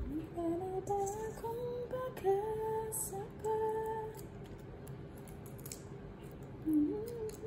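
A woman humming a slow tune without words, held notes stepping up and down, for about four seconds and again near the end. Small crisp clicks run through it, from shrimp shells being peeled by hand.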